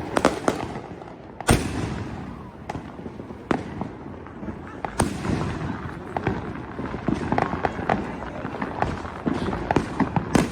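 Fireworks and firecrackers exploding: a run of sharp bangs of varying loudness over continuous crackling, the loudest bangs about a second and a half and five seconds in.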